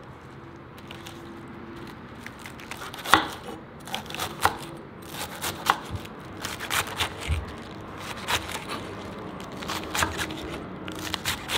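A kitchen knife cutting vegetables on a wooden cutting board: irregular sharp knocks and crisp crunches, the loudest about three seconds in.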